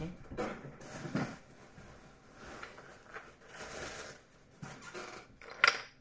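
Handling noises as a large parrot toy of chunky wooden blocks on a metal chain is fetched and lifted: rustling and light knocks, with one sharper knock just before the end.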